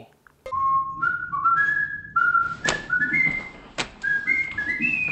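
A person whistling a tune in short stepping notes, starting about half a second in, with three sharp clicks about a second apart.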